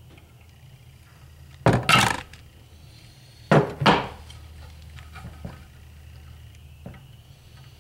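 Hammer blows on a tool knocking the roller bearings out of the notched front output shaft rear bearing in an NP208 transfer case rear cover. There are two pairs of sharp knocks, one just before two seconds in and one just before four seconds, then a few light clicks.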